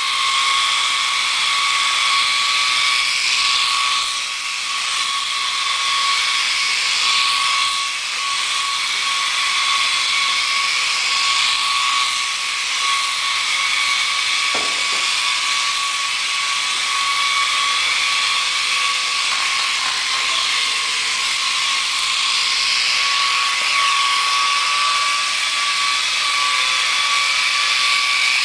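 Small electric motors and rotor blades of a Silverlit RC toy helicopter whining steadily in flight, a high, even buzzing tone that wavers only slightly.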